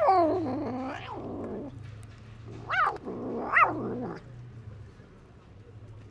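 Cat growling and yowling while guarding its food from other cats. One long yowl falls in pitch at the start and turns into a rough growl, then two short, higher wails come about three and three and a half seconds in.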